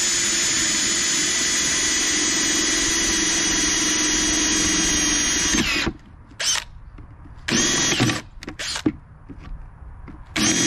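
Power drill with a Forstner bit boring a hole through a plastic bucket. The motor holds a steady whine for about six seconds, stops, then spins up again in a few short bursts.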